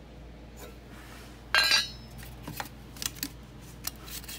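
Steel parts being handled: one loud metallic clank about one and a half seconds in, followed by a few light metal clicks.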